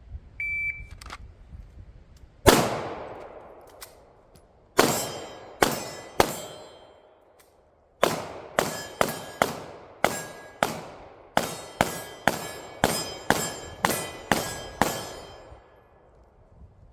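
A shot timer beeps once about half a second in, then a pistol fires about twenty shots at ringing steel targets. First come a few spaced shots, then a pause of about a second and a half, then a fast run of shots at about two a second.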